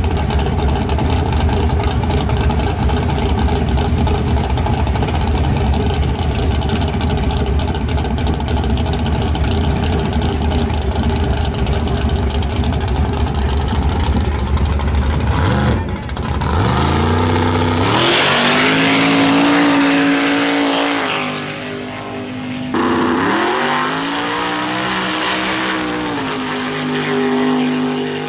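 Nitrous-fed Mustang drag car's engine idling steadily at the start line, then launching about sixteen seconds in: the revs climb, fall back at a gear change and climb again twice as the car pulls away down the track.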